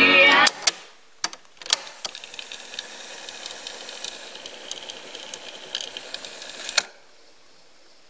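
Teac A-170 cassette deck: music playing from the tape stops abruptly about half a second in with the clack of the piano-key stop button, and a few more key clicks follow. The transport then fast-winds the tape with a steady whirring hiss and light ticking for about five seconds, ending in a sharp clunk about seven seconds in.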